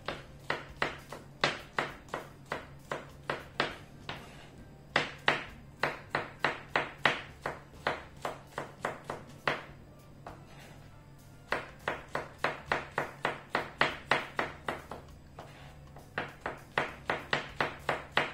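Kitchen knife chopping garlic cloves on a plastic cutting board: quick runs of sharp knocks, about three or four a second, broken by a few short pauses.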